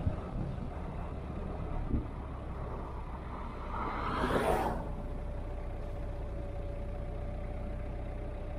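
Hyundai Galloper 4x4 running with a steady low rumble, a single knock about two seconds in and a brief rushing swell about four seconds in.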